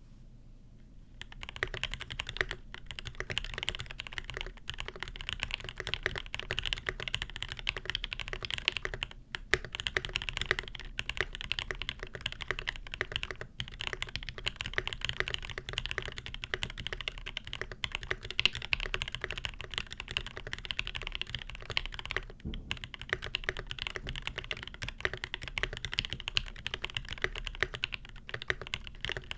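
Fast, continuous typing on a custom mechanical keyboard with lubed Alpaca linear switches in a brass plate, with JTK cherry-profile keycaps and lubed Durock v2 stabilisers. It starts about a second in, with a few brief pauses along the way.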